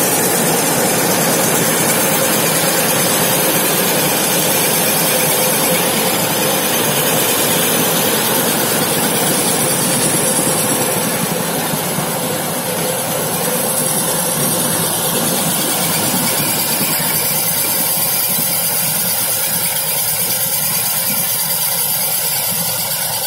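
Fully automatic paper and foil lamination machine running: a loud, steady mechanical noise from its motors and rollers.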